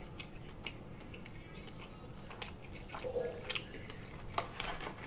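Close-miked chewing of a mouthful of food, with scattered sharp wet mouth clicks and smacks that come more often in the second half.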